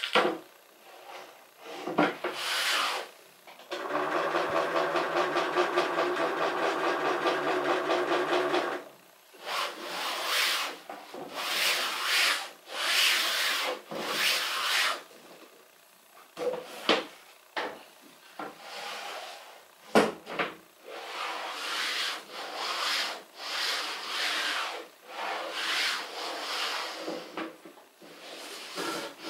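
Wooden crosscut sled of melamine-faced board slid back and forth over a table saw's table, rubbing in repeated strokes a second or two long. About four seconds in, a steady, evenly pulsing mechanical sound lasts about five seconds.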